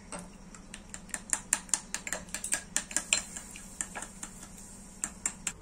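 Metal spoon beating eggs in a glass bowl, clinking against the glass in a quick run of about five taps a second, then a few slower taps near the end.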